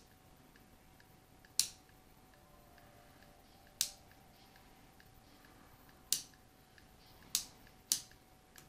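Sharp clicks of a headphone A/B switch box being flipped back and forth, five in all, irregularly one to two seconds apart. The switching is done while matching the volume of a tube amplifier against a solid-state amplifier.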